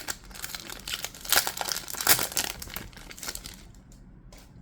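Foil booster-pack wrapper crinkling and tearing as a Pokémon trading card pack is opened, the rustling dying down about three and a half seconds in.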